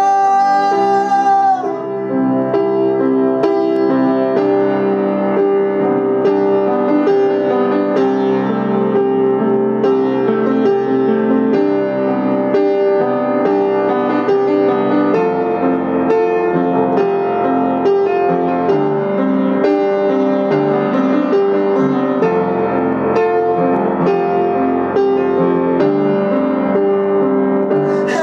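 Old upright piano played alone in a long passage of chords and melody, after a man's held sung note fades out about two seconds in; his singing comes back right at the end.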